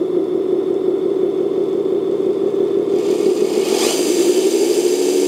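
JDM-168 RC Jeep crawler's drivetrain running in its fastest, fourth gear, with the wheels spinning free off the ground. The whir rises in pitch about three seconds in as it speeds up.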